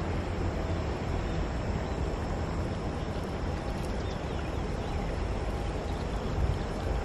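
Steady outdoor background noise with a low rumble, even throughout.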